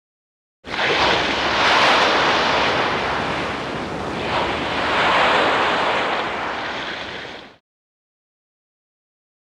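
Sea-wave sound effect: a sudden wash of surf that swells twice and then fades out over about seven seconds.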